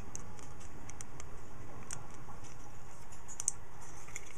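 Scattered small clicks and taps of metal hand work as a wire spring clip is worked into a groove on a metal arm, against a steady low background hum.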